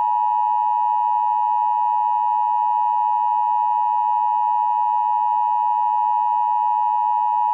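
Emergency Alert System attention signal: a loud, steady two-tone alert held unchanged, the tone that announces an emergency message is about to follow.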